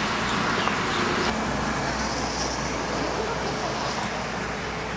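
Steady outdoor noise of road traffic with faint voices. About a second in, a low steady rumble takes over.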